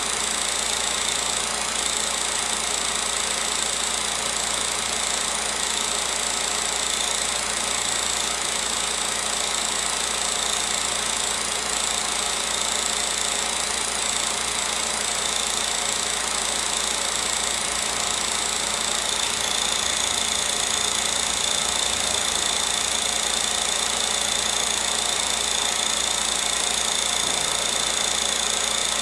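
16mm film projector running: a steady mechanical whir with a constant high whine.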